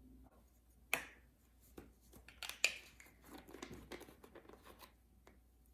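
Handling noise as a plastic spice jar of ground cinnamon is picked up off the counter and its cap opened: a sharp click about a second in, a cluster of small clicks a moment later, then faint rustling.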